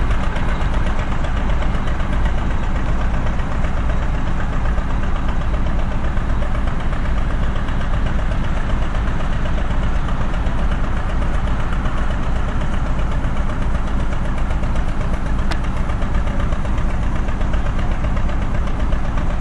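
A diesel rail vehicle's engine running steadily at idle, an even, unchanging drone, with one faint click about 15 seconds in.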